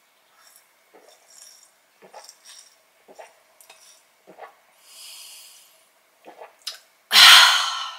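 A person swallowing beer in gulps from a glass, about one swallow every half second, with a soft breath through the nose partway through. Near the end comes a loud, satisfied exhaled 'ahh' sigh after the drink.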